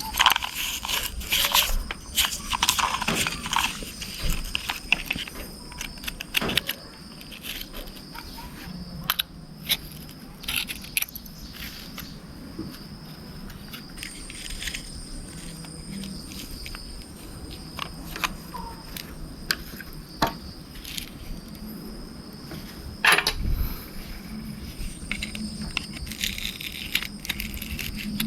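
Mud being cleaned off a toy RC car by hand: irregular scratching, scraping and small clicks of tools and fingers on the car, with a louder cluster of knocks about 23 seconds in.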